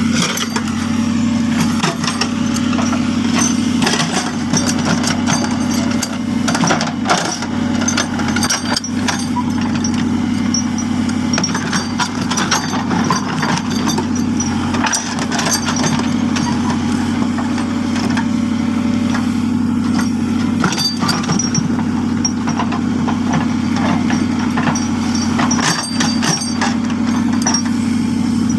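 JCB backhoe loader's diesel engine running steadily under work, with scattered knocks and rattles throughout as the machine works the road.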